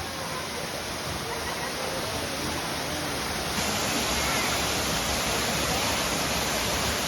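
A waterfall rushing steadily, an even wash of falling water that gets a little louder about halfway through.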